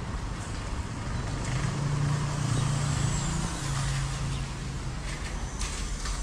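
Street traffic noise, with a motor vehicle's low engine hum rising about a second and a half in and fading away after about five seconds.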